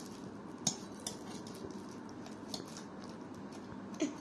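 A pizza server scraping and clicking against a stainless steel plate as it is worked under a slice of pizza. There are a few sharp clicks, the loudest shortly after the start and another near the end.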